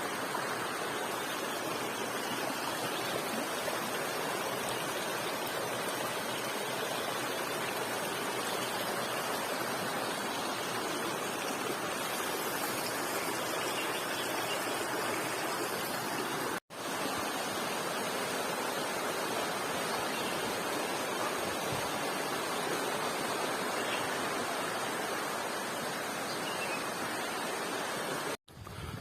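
Steady rushing of a flowing stream, even and unbroken apart from two brief dropouts, one about halfway through and one near the end.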